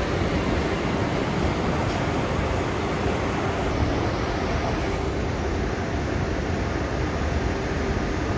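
Steady rushing noise with no distinct events: open-air ambience on a railway station platform.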